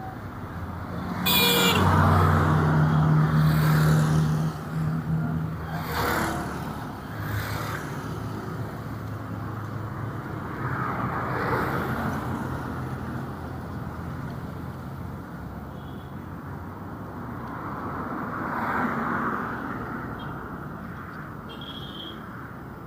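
Street traffic passing close by. A vehicle with a loud, low engine hum goes past in the first few seconds, then several more vehicles swish by one after another.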